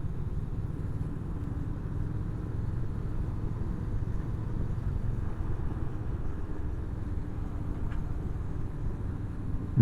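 Honda CB500X motorcycle's parallel-twin engine running steadily, a low even rumble.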